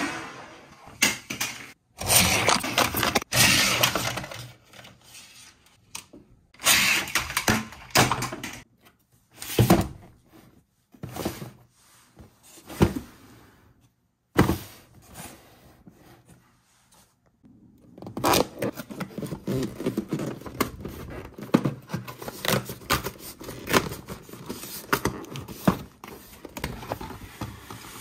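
Hard plastic toy parts and a cardboard toy box being handled: clattering, scraping and clicking in bursts separated by brief silences.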